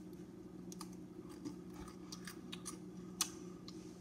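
Graham cracker being chewed: faint, irregular crisp crunches and clicks, with a steady low hum underneath.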